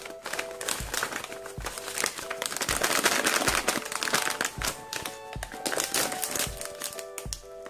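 Crinkling of a foil-lined plastic snack bag being handled and pulled open, densest about three seconds in. It plays over light background music of short repeated notes.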